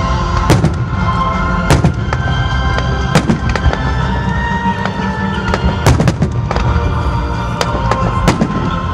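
Fireworks exploding in the air, with a string of sharp bangs, some coming in quick pairs, over music playing throughout.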